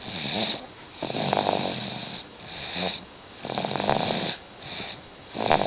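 A nine-month-old baby snoring in sleep: a rattly, hissy snore on each breath, about three breaths in a steady rhythm, each longer snore followed by a shorter one.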